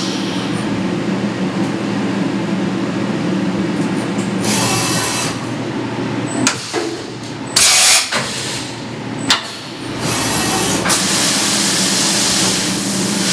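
CNC vertical mill running its program: a steady machine hum, then two short loud hissing bursts and a click as the spindle goes up for a tool change. From about 10 s through-spindle coolant sprays out in a steady loud hiss, left running because it is on a different M code from the flood coolant that was switched off.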